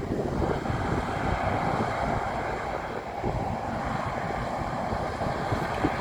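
Wind buffeting the microphone over the steady distant hum of a John Deere combine harvester cutting wheat, with one brief click near the end.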